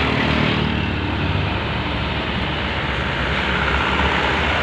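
A long heavy truck driving past close by, its diesel engine running with a low drone under steady tyre and road noise.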